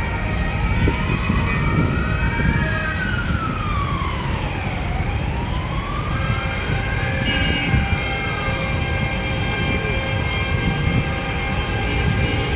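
A slow wailing siren rising and falling, one cycle about every four and a half seconds, with a second, higher siren wailing briefly near the middle. Underneath is the steady low rumble of tractor engines.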